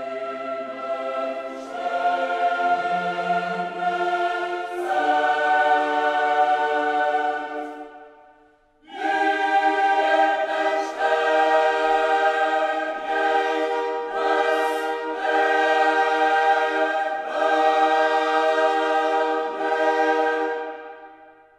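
Background music: a choir singing long held chords that change every second or two, breaking off briefly about eight seconds in, then fading out near the end.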